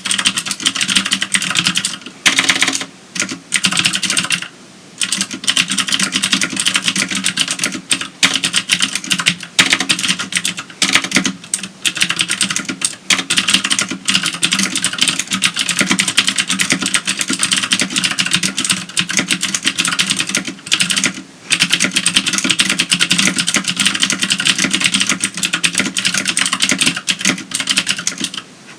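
Continuous typing on a CM Storm QuickFire Stealth mechanical keyboard with clicky Cherry MX Green switches: a dense run of sharp keystroke clicks, broken by a few brief pauses.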